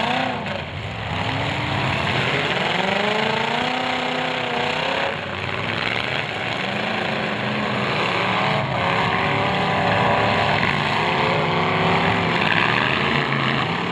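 Several demolition derby cars' engines running and revving hard together, their pitches rising and falling over one another in a dense, loud din.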